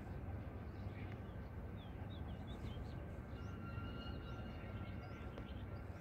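Small birds chirping, many short high calls, with a thin steady whistle held for a second or two about midway, over a faint low steady rumble.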